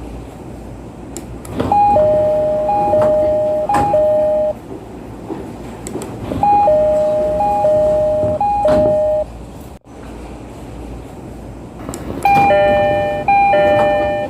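JR East 209-series train door chime, dubbed in: three high-low two-note pairs, played twice. After a short break, a brighter E531-series door chime with the same high-low pattern begins near the end. Low platform and train noise runs underneath.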